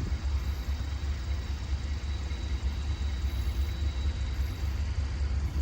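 Freight train rolling slowly, a steady low rumble with faint thin high tones above it.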